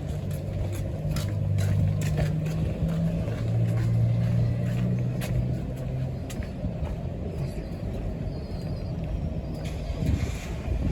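Street traffic with a motor vehicle's engine humming close by, strongest in the first six seconds and then fading.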